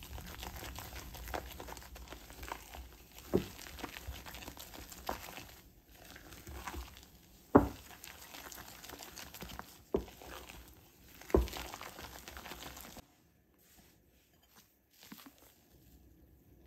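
Spatula stirring whipped egg whites into thick chocolate cake batter in a bowl: wet squelching and scraping, broken by about four sharp knocks. About thirteen seconds in it drops to a faint scraping.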